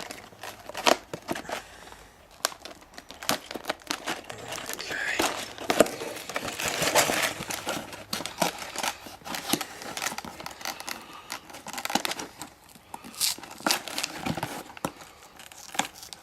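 A cardboard LEGO set box being opened by hand: the box tabs tear and the flaps are pulled open, with crinkling and rustling of cardboard and plastic parts bags and scattered taps and knocks. The rustling is densest and loudest in a stretch of about three seconds near the middle.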